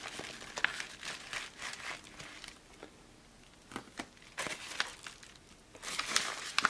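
Yellow padded paper mailer crinkling and rustling in the hands, with scattered light clicks, as a sleeved card is taken out of it; the handling stops for a quiet stretch about halfway through and picks up again near the end.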